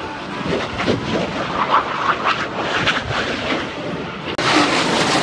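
Jet roar from a Blue Angels F/A-18 Hornet making a low pass, crackling and rising in level. The sound drops out for an instant about four seconds in, then comes back louder.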